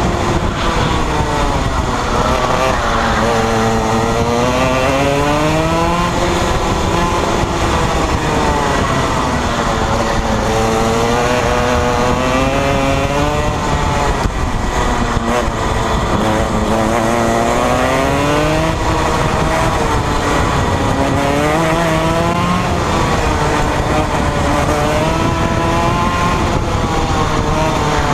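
Rotax Max 125cc single-cylinder two-stroke kart engine at race pace, heard on board. Its pitch climbs on each straight and drops as the driver lifts for each corner, several times over.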